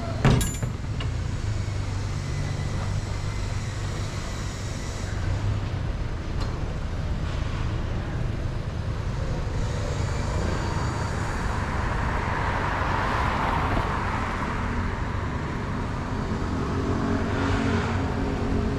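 Street traffic noise: a steady low engine rumble, with a vehicle passing by about twelve to fourteen seconds in. A sharp knock sounds just after the start.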